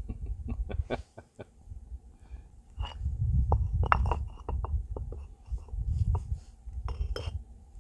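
Cored clay bricks being set down and shifted on a stone slab: a run of short, sharp knocks and clinks, with a low rumble coming and going underneath.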